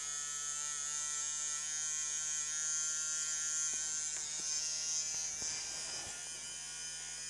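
Small brushed DC motor from an old Black & Decker electric screwdriver running free on 2.4 volts from a bench power supply, with no gear or load on its shaft: a steady electric whine with a hissing buzz over it.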